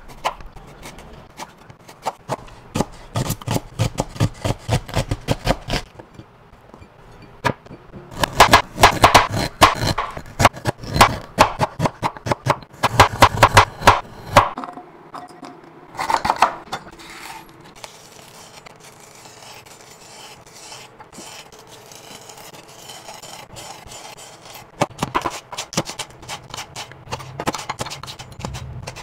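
Chef's knife chopping on a plastic cutting board, slicing ginger, garlic cloves and green onions: quick runs of knife strokes, several a second, each ending in a knock on the board, with pauses between the runs. The longest and loudest run comes in the middle.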